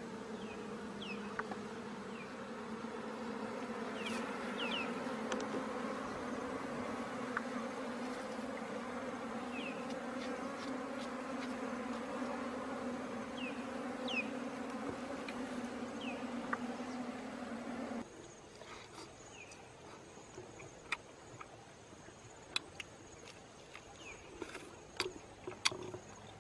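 A swarm of honey bees buzzing steadily at a wild comb nest dug out of the ground, with short bird chirps over it. About two-thirds of the way through, the buzz cuts off. Quiet follows, broken by scattered sharp clicks.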